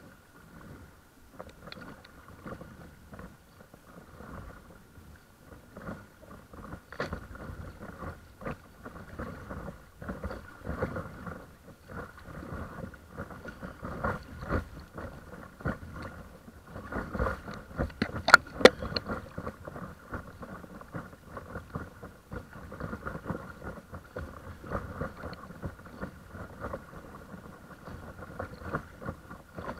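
Paddle strokes and water splashing and lapping against a paddleboard, in an uneven rhythm, with a few sharp knocks, the loudest about 18 seconds in. A faint steady whine runs underneath.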